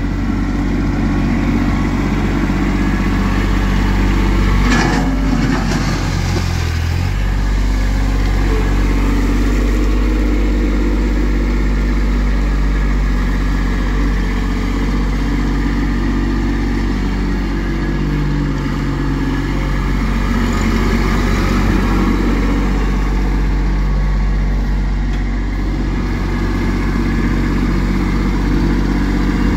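Compact tractor engine running steadily as the front-loader tractor drives with a bucket of rock. A brief clatter comes about five seconds in, and the engine speed shifts shortly after.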